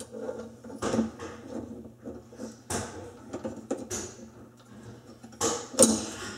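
Metal parts of a garbage disposal mount assembly clinking and knocking as the mounting plate with its screws is handled and fitted onto the sink strainer: irregular small knocks, the loudest near the end.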